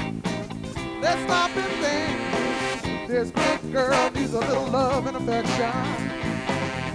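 Live band playing a soul number: electric guitar over a steady bass line, with a woman singing into the microphone.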